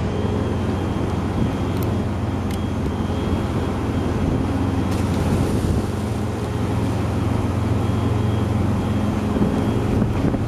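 Steady low drone of a large car ferry's machinery with a constant hum, a few faint clicks about two seconds in.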